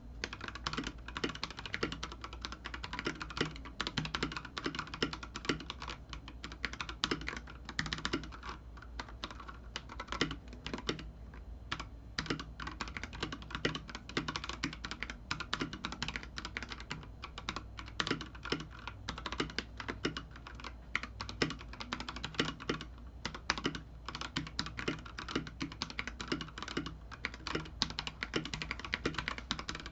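Typing on an AKKO 3068B Plus mechanical keyboard in stock form: a continuous run of fast keystrokes. The thick plastic keycaps sit over an aluminium plate with two layers of sound-dampening foam, which give it a fairly deep sound.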